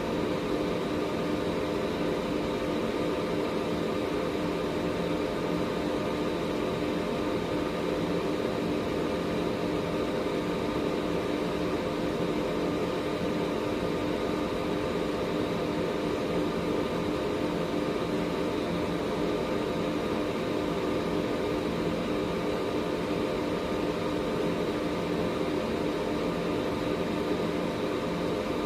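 Air purifier fan running steadily: an even whoosh of moving air with a constant hum and a faint, thin high whine, unchanging throughout.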